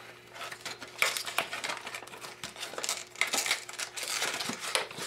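Cardboard box and paper packaging of a trading-card structure deck rustling and crinkling as hands pull the contents out, with a run of small irregular clicks and scrapes.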